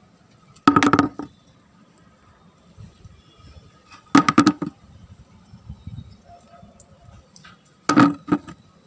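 Small plastic toy animals dropped into a plastic bucket, clattering three times. Each drop is a quick run of sharp knocks, about a second in, after about four seconds, and near the end.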